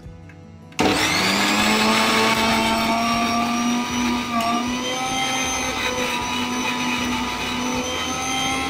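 Electric mixer grinder switched on about a second in, its motor whining up to speed, then running steadily as it grinds coconut chutney in a small steel jar.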